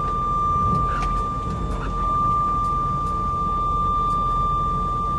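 Low, steady rumble of a vehicle running, heard from inside the cab, with a continuous high-pitched tone held unbroken over it.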